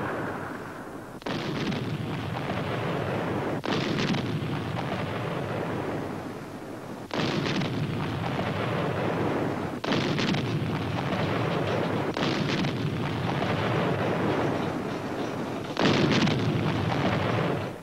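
Heavy siege artillery firing: six shots a few seconds apart, each followed by a long rolling rumble.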